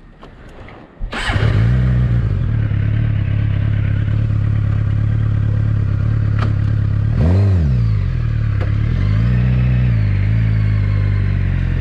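Suzuki GSX-R 750 inline-four engine starting about a second in and then running steadily at idle. It is revved once quickly about seven seconds in, then its pitch rises and falls again gently as the bike pulls away.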